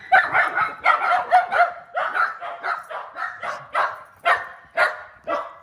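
Shetland sheepdog barking excitedly, rapid barks packed close together at first, then spacing out to about two or three barks a second.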